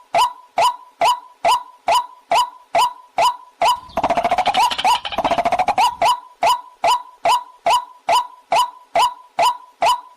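Recorded waterhen (jal murgi) call played as a lure for catching the bird. A sharp call note repeats evenly a little over twice a second, broken about four seconds in by two seconds of fast, chattering calls.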